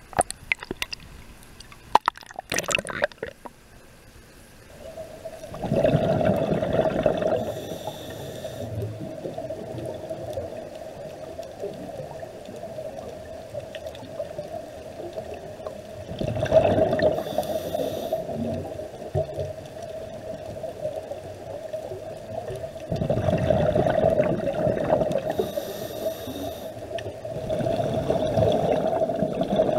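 Underwater sound of a scuba diver breathing through a regulator: a rush of exhaled bubbles comes about four times, each followed by a fainter hiss, over a steady hum. Sharp splashes and clicks at the water's surface in the first few seconds.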